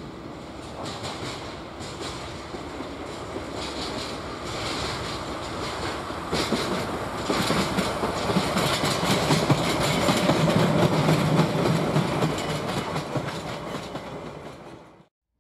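Track-inspection train passing on the line, its wheels clicking over the rail joints. It grows louder to a peak about ten seconds in, then fades and cuts off abruptly near the end.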